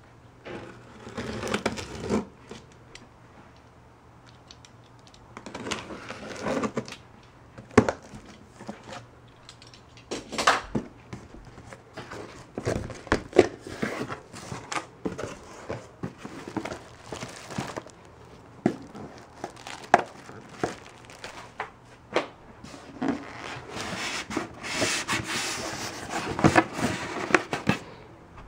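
Cardboard shipping box being unpacked by hand: packing tape cut and pulled, cardboard flaps folded back, plastic wrap crinkling and a styrofoam packing block shifted against the cardboard. It comes as irregular rustles and scrapes with scattered sharp knocks.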